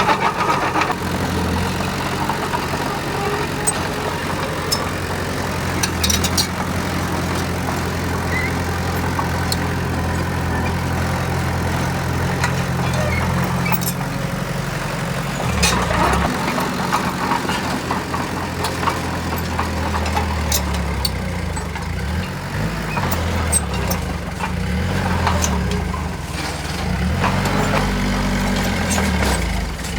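Heavy construction-machine diesel engine running steadily. Its speed shifts about halfway through and again over the last ten seconds, with scattered clicks and knocks over it.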